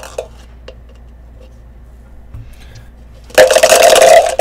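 Two dice rattling hard in a cup for about a second near the end, a loud dense clatter. A few light clicks at the start as the cup is picked up with the dice in it.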